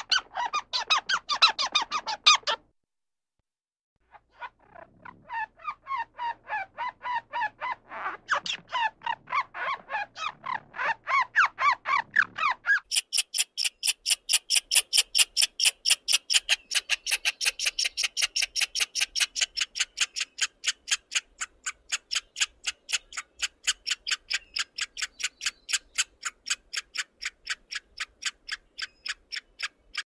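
Squirrel chattering in rapid runs of short, repeated calls, about five a second. After a brief pause it starts a long series, which turns partway through into higher, sharper calls that go on without a break.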